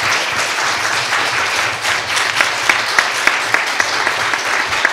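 Audience applauding, thinning toward the end into more scattered separate claps.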